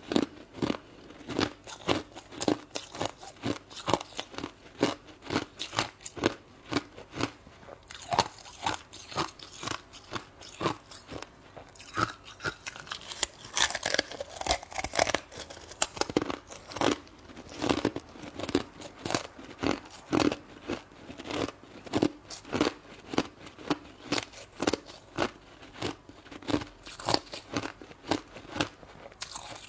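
Shaved ice being bitten and chewed close to the microphone: a steady run of sharp, crisp crunches, about two a second.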